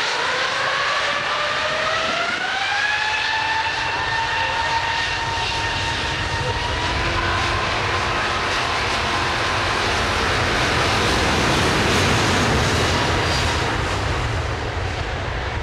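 Airbus A380's four jet engines spooling up to take-off thrust: a rising whine over the first few seconds that then holds steady, with the jet noise growing louder as the airliner accelerates down the runway and lifts its nose for take-off.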